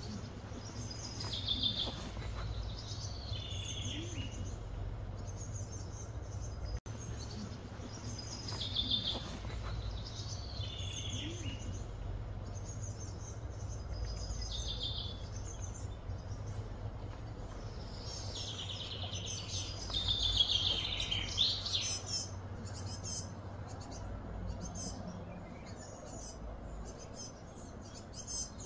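Wild birds calling and singing, short high chirping phrases repeated every couple of seconds, busiest and loudest about twenty seconds in, over a steady low background hum.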